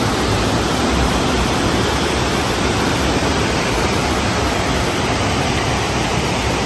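Loud, steady rush of river rapids, whitewater pouring over and between boulders.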